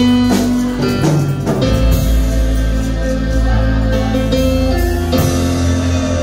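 Live church worship band music: sustained keyboard chords with electric guitar and drums, with a few crashes marking chord changes.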